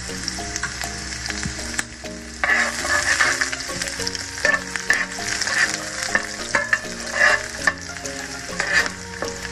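Pork belly strips and chopped garlic sizzling in hot oil in a nonstick frying pan, stirred with a spoon. From about two and a half seconds in, the spoon scrapes and clatters against the pan again and again.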